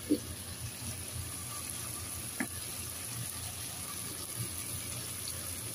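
Diced potatoes and tomato sizzling faintly in a pot as they are stirred, under a steady low hum, with two sharp clicks: one just after the start and one about two and a half seconds in.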